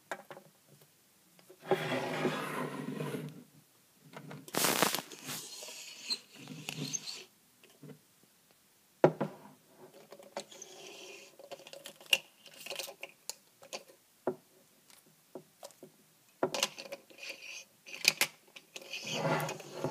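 Handling noise of small plastic Littlest Pet Shop figurines being moved by hand over a hard surface: scattered taps and knocks with short spells of rustling.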